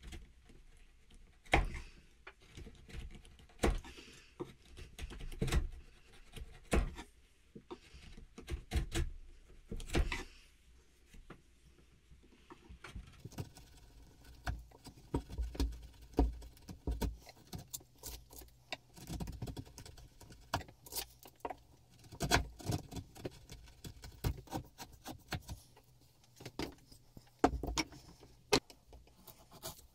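A bench chisel pared by hand into beech end grain, cutting the throat of a wooden plane body: irregular short crisp cuts and scrapes, some sharper than others.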